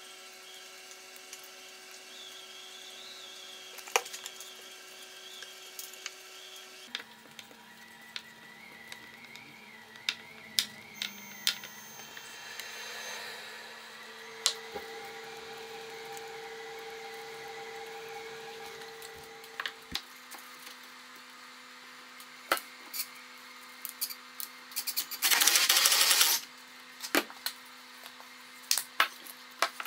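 Wood and hand tools being handled on a workbench: scattered clicks and knocks from the glued veneer strips and clamps, over a steady low drone that changes pitch a few times. A loud, noisy rushing burst lasts about a second near the end.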